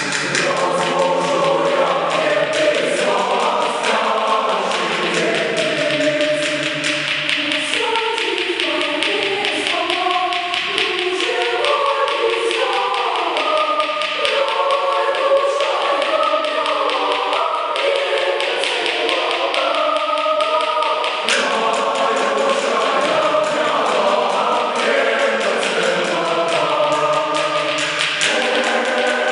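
Boys' and young men's choir singing in parts, the singing going on without a break.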